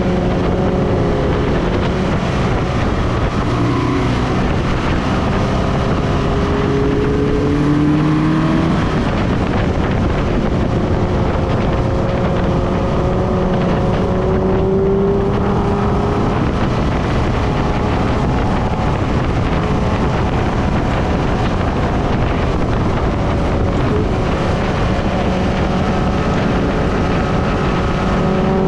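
Subaru BRZ's 2.0-litre flat-four engine driving at track speed, its pitch rising several times and dropping back as it accelerates and shifts. A steady roar of wind and tyre noise on the low-mounted camera sits under it.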